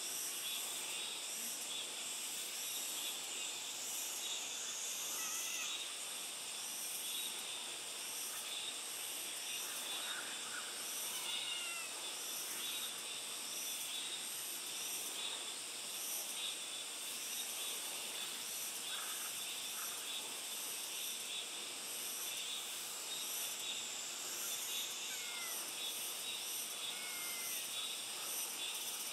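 Kittens giving a few short, high, falling meows now and then, over a steady high-pitched chorus of insects.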